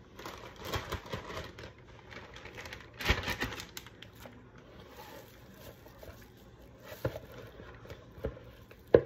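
Plastic crinkling in a few irregular bursts as a zip-top bag of flour is handled with a plastic-gloved hand, the loudest about three seconds in, then two short sharp clicks late on.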